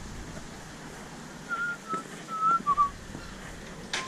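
A person whistling a few short, wavering notes of a tune, clustered about halfway through. A sharp click comes near the end.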